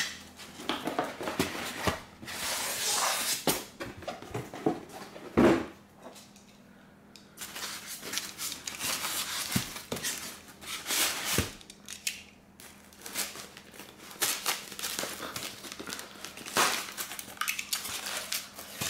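Polystyrene foam packing blocks being pulled out of a cardboard box and handled: irregular scraping and rubbing of foam on cardboard, with a few knocks, the loudest about five seconds in.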